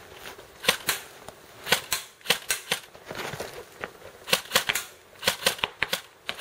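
Airsoft rifle firing rapid single shots, sharp clicks in quick groups of two or three with short pauses between groups.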